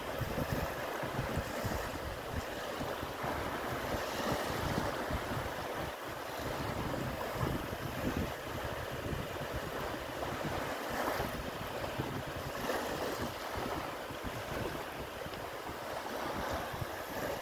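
Small sea waves washing onto a beach, with wind buffeting the microphone in uneven gusts.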